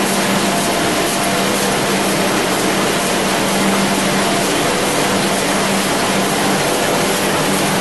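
Heidelberg Speedmaster CD 74 four-colour sheetfed offset press running: a loud, steady mechanical din with a constant low hum.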